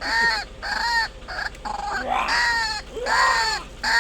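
White-breasted waterhen calling over and over in its loud 'ruak-ruak' call: a string of arched, rising-then-falling notes, about two a second, with a short break near the middle.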